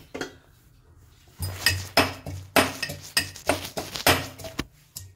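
Stainless steel pestle pounding garlic cloves in a steel mortar: a run of sharp, ringing metallic clinks, about three or four a second, starting about a second and a half in and stopping shortly before the end.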